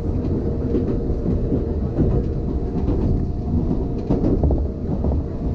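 Enoden commuter train running, heard from inside the car: a steady low rumble of wheels on rail, with a few sharp clacks about four seconds in.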